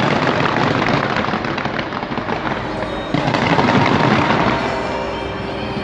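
A fireworks display: dense, overlapping bangs and crackling from aerial shells bursting, getting louder about three seconds in.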